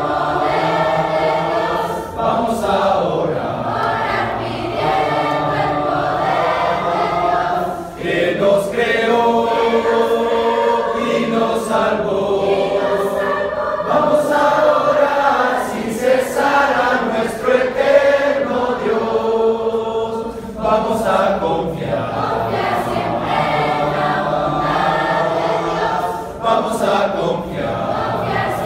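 A mixed congregation of young men and women singing a Spanish hymn together a cappella, unaccompanied voices, in phrases with brief pauses for breath.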